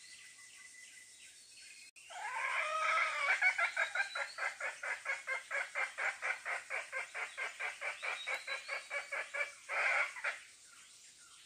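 A junglefowl clucking in a fast, even run of about five clucks a second for some eight seconds. It ends in a louder, harsher call.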